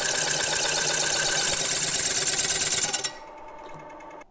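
Mini lathe cutting through a metal plate held in its three-jaw chuck: a loud, harsh, steady cutting noise that stops abruptly about three seconds in as the tool breaks through and the disc comes free, leaving only the quieter hum of the lathe, which drops away near the end.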